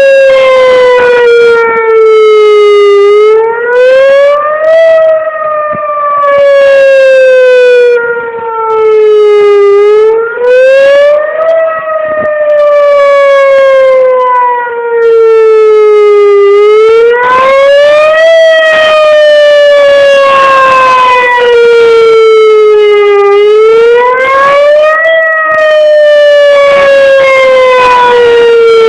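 Whelen Vortex R-4 electronic outdoor warning siren sounding the wavering Attack signal, very loud. Its tone slides slowly down for about five seconds, then sweeps quickly back up, over and over.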